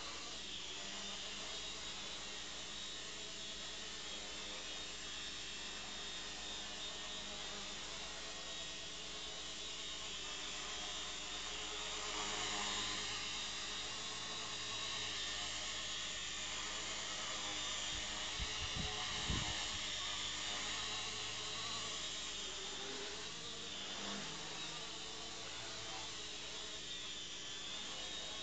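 Walkera 4#3 micro RC helicopter's small electric motors and rotor blades whining and buzzing steadily while it flies, the main rotor motor running on a replacement driver FET. A few short knocks come about two-thirds of the way through.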